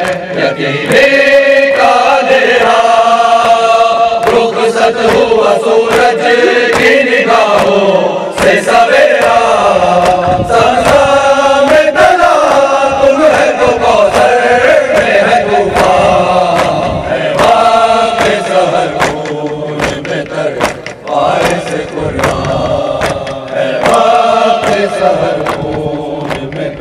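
A crowd of men chanting a mourning lament (noha) together, with repeated slaps of chest-beating (matam) keeping time.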